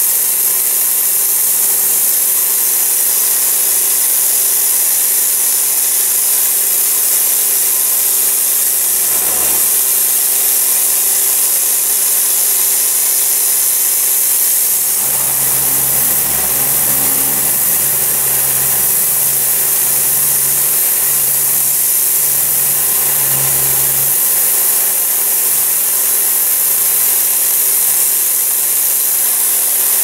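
Pressure washer running steadily: a loud hiss from the high-pressure water jet over the steady hum of the pump. A deeper rumble joins from about halfway through for roughly nine seconds, then drops away.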